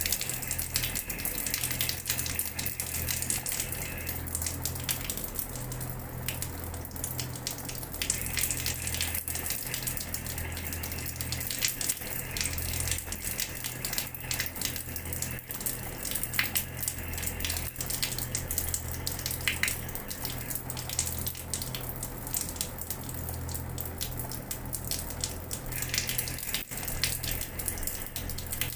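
Water running from a tap and splashing onto a hard floor: a steady spattering flow full of small drips and splashes, with a low hum underneath.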